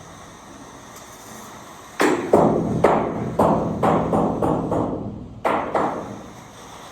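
Hammer striking metal: about ten sharp, ringing blows in quick succession, starting about two seconds in, with a short pause before the last two.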